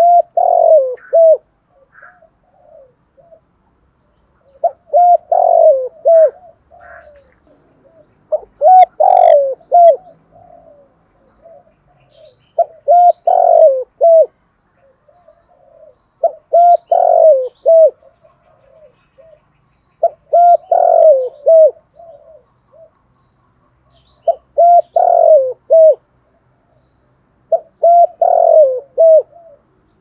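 Spotted dove cooing: a phrase of several low coos repeated about every four seconds, eight times. It is the decoy's advertising coo, used to draw wild spotted doves in.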